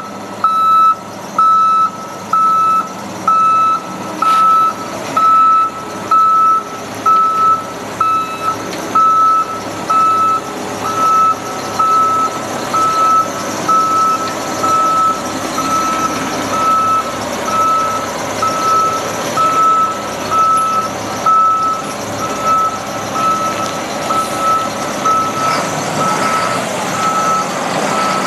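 Backup alarm on a Sterling L8500 dump truck beeping steadily, one tone about one and a half times a second, over the truck's diesel engine running. The engine grows louder in the second half.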